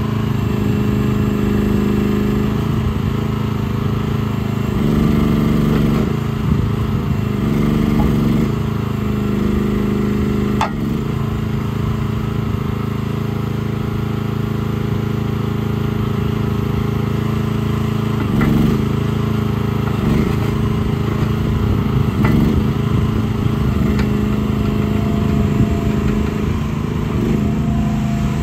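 Briggs & Stratton 420cc single-cylinder gas engine of a mini excavator running steadily, its note wavering briefly several times as the boom, arm and bucket are worked. There is a single sharp click about ten seconds in.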